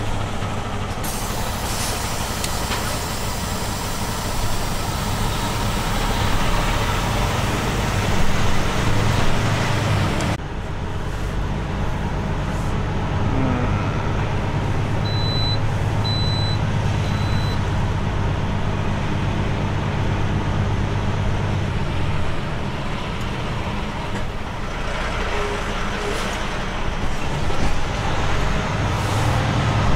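International semi truck's diesel engine running with a steady low drone, heard from inside the cab as the truck rolls slowly. A steady hiss over it stops suddenly about ten seconds in, and three short high beeps sound near the middle.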